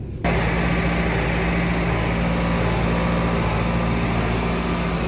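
An engine running steadily: a low, even hum under a broad rushing noise. It begins abruptly just after the start.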